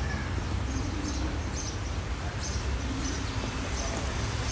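Open-air ambience: a steady low rumble with a bird's short, high chirps repeating about once or twice a second, and faint distant voices.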